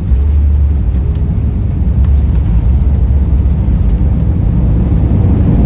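Loud, steady low rumble inside an airliner's cabin as the plane comes in to land, with a few faint clicks over it.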